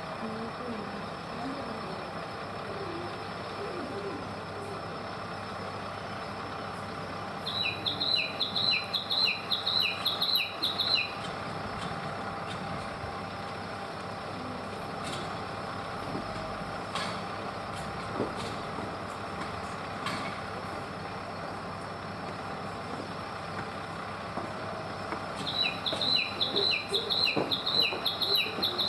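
A small songbird singing a quick repeated two-note phrase, about eight times in three seconds. It sings once about eight seconds in and again near the end, over a steady hum.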